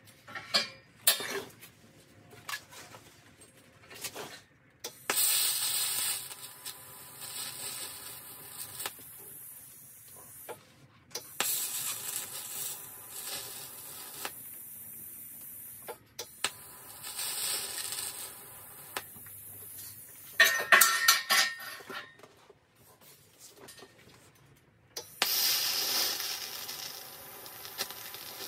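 Electric arc welding of a steel chain link onto an axe head: a hissing, sizzling arc in several runs of a few seconds each, with short pauses between them. A few sharp metal knocks come first, as the pieces are set on the steel welding table.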